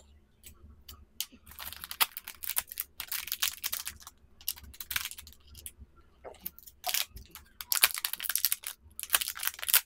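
Crinkling and rustling of metallised anti-static bags being opened and handled to unwrap small electronic modules, in irregular bursts of crackles.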